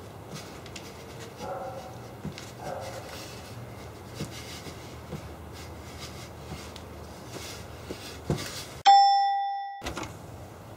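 A doorbell chime rings once about nine seconds in, a single clear tone that fades away over about a second.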